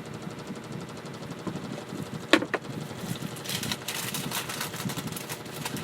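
Cooking in a pan: two sharp clacks about two seconds in, then rapid crackling and popping of hot oil from about three seconds in.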